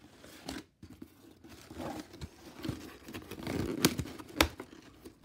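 Cardboard shipping box being pulled open by hand: flaps tearing and rustling, with two sharp snaps about four seconds in.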